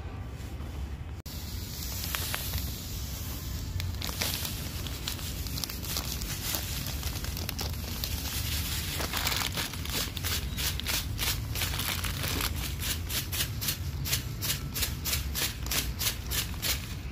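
A thin plastic packet crinkling as white granules are poured and shaken out of it onto soil. In the second half the shaking settles into a regular rhythm of about three or four shakes a second.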